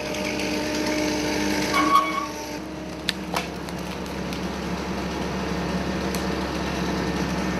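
Engine of a wood-processing machine running steadily, with a brief higher tone about two seconds in and a few sharp clicks or knocks about three seconds in.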